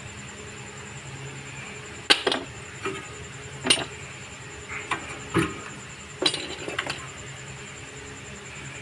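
Sharp metallic clinks and taps of brake pads and their clips knocking against the caliper bracket as they are handled: about seven short clinks between roughly two and seven seconds in, over a steady low hum.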